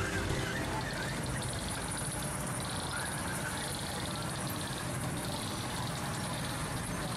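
Children's ride-on train running along its small steel track: a steady mechanical running noise with a low hum.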